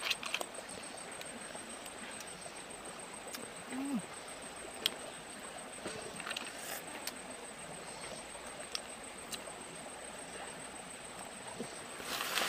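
Hands picking through food in a bowl: a few light clicks and faint rustling over a quiet, steady background, the sharpest click about five seconds in. A brief low falling hum about four seconds in.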